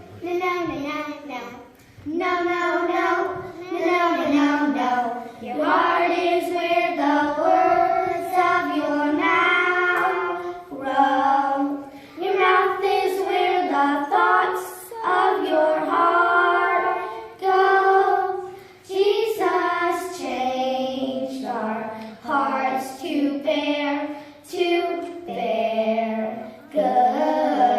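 A group of young children singing a song together, in short sung phrases with brief breaks between them.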